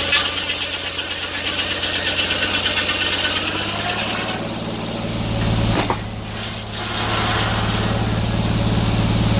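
An engine running steadily, its sound changing about four seconds in, with one sharp knock just before the six-second mark.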